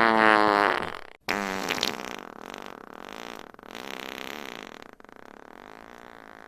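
Fart sound effects. A loud, pitched, wavering fart ends about a second in. After a brief silence a second fart starts and trails off more quietly over several seconds.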